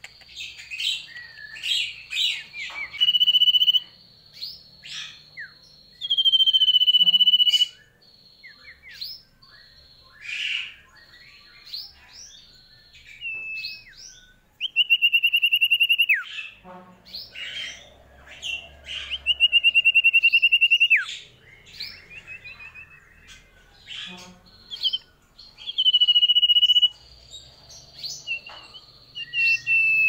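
A yellow-green songbird of the kind Indonesian bird keepers call a sirtu, singing close up. It gives loud, level whistles a second or two long, several ending in a quick downward slur. Between them come short chirps and rapid twittering notes.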